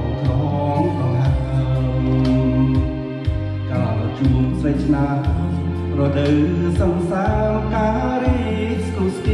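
Karaoke singing: a voice singing over a backing track with long held bass notes.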